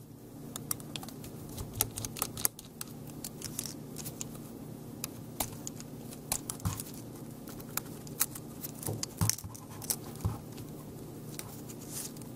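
Scattered small clicks and taps of a precision screwdriver and fingertips on the metal and plastic of a partly dismantled Casio Exilim EX-Z32 compact camera as the two screws on its end are undone and the parts handled, over a low steady hum.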